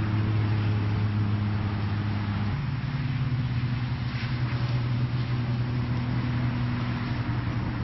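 A motor running steadily with a low hum, its pitch stepping up slightly about two and a half seconds in, over a steady hiss.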